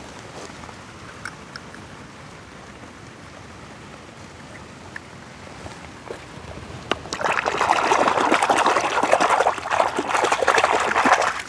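Shallow water splashing and sloshing as a hand swishes a mud-caked die-cast toy car back and forth to wash it. The splashing starts about seven seconds in, is loud and crackly, and stops abruptly near the end.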